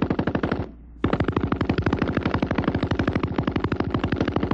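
Water-cooled Browning machine gun firing full-automatic, a fast, even stream of shots at about nine a second. It pauses for under half a second about two-thirds of a second in, then fires on.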